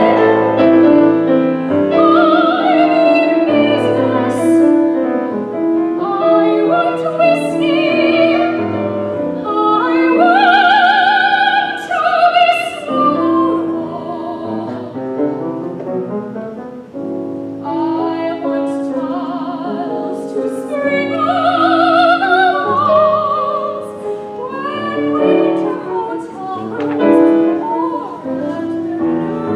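Classically trained soprano singing an art song with vibrato, accompanied by grand piano. Her voice twice climbs to strong high held notes, about ten and twenty seconds in.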